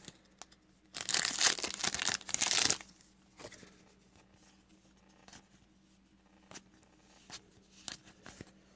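A trading card pack wrapper torn open with a crinkly rip lasting about two seconds, followed by faint scattered clicks of cards being handled.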